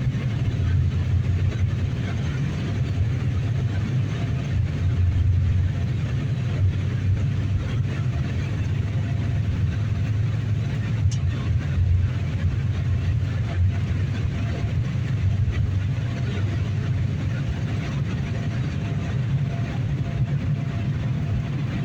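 Airliner cabin noise: the steady low rumble of jet engines and airflow in flight.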